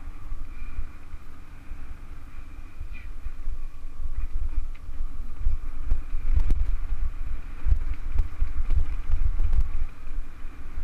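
Wind buffeting the microphone of a camera on a mountain bike descending a rough dirt trail, with short knocks and rattles as the bike goes over bumps; it gets louder about halfway through as the bike picks up speed.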